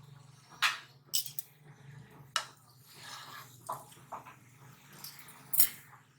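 A handful of sharp clicks and knocks from kitchen utensils, with a couple of short scraping sounds between them, over a steady low hum.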